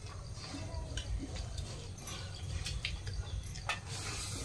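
Soft clicks and smacks of eating by hand: fingers working rice on steel plates, and chewing. A pigeon coos faintly about half a second in.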